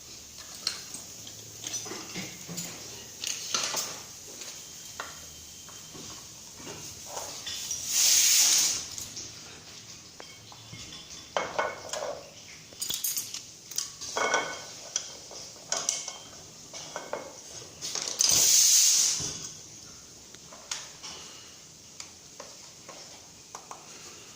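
Metal tools and fittings clinking and tapping during refrigeration pipe work, with two loud bursts of gas hissing, each about a second long and about ten seconds apart.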